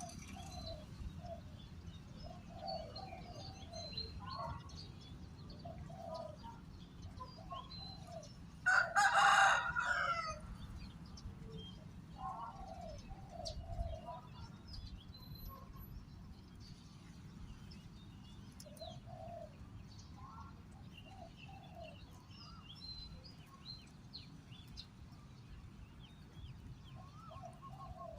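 Spotted doves cooing in short repeated phrases, with faint small-bird chirps. A rooster crows once, loudly, about eight and a half seconds in.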